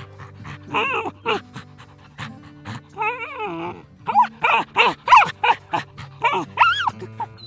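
A small dog or puppy yapping, a quick irregular series of short high-pitched yips with a longer whining yelp about three seconds in.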